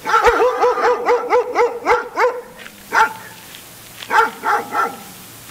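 Large white dogs barking: a fast run of about a dozen short barks over the first two seconds, then a single bark about three seconds in and three more about a second later.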